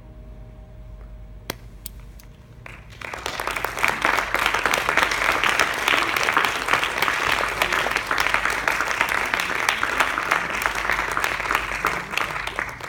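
The last piano note fades away, a few scattered claps follow, and about three seconds in the audience breaks into full, steady applause, easing slightly near the end.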